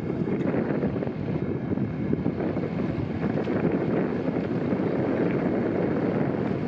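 Steady wind buffeting the microphone of a moving boat, a loud, even rumble with no clear rhythm.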